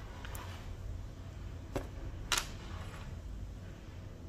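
Plastic keycaps clicking lightly as they are handled and set down, with two sharp clicks about half a second apart in the middle, over a low steady room hum.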